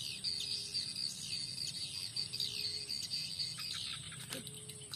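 Steady high-pitched insect chorus with repeated chirping and falling bird calls. A single sharp click sounds about four seconds in.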